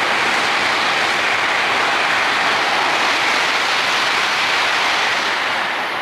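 JR E2 series Shinkansen passing at high speed: a loud, steady rush of wind and wheel noise, beginning to fade near the end.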